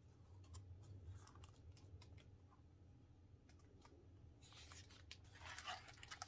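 Faint handling of a hardcover picture book: scattered light clicks and taps, then a page turning with a papery rustle from about four and a half seconds in.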